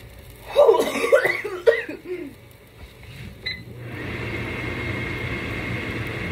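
A short wordless vocal sound, then about four seconds in a kitchen range hood fan switches on and runs steadily with a faint high whine over an even rushing noise.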